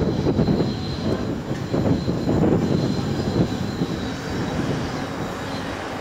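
Locomotive of a yellow Network Rail test train running as it approaches, a rough rumble that is loudest in the first few seconds and then eases, with a thin high steady whine.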